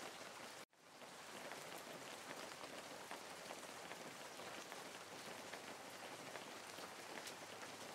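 Steady rain falling, an even hiss with scattered fine drop ticks; it cuts out for an instant just under a second in, then carries on.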